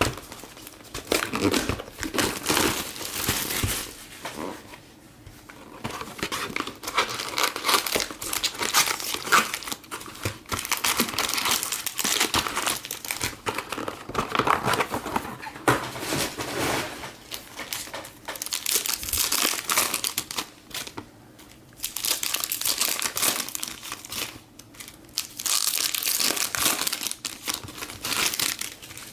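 Foil trading-card pack wrappers crinkling and tearing as Topps Chrome football hobby packs are ripped open and handled, in irregular bursts with short pauses.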